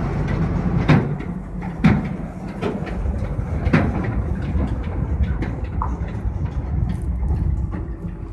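Amphibious excavator's engine running steadily, with loud metallic clanks from the machine about a second in, two seconds in and near four seconds, and lighter knocks between.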